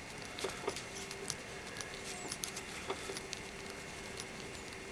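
Small screwdriver turning a tiny cover screw into a WLToys V262 quadcopter's plastic motor arm, hand-tightened: faint, scattered little clicks and ticks.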